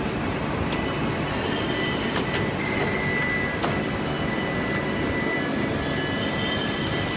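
Steady mechanical hum of industrial machinery, with a thin high whine and a few sharp clicks a couple of seconds in.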